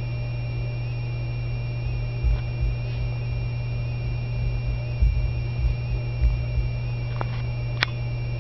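Steady electrical hum with a faint high whine above it, a few soft low thumps in the middle and one sharp click near the end.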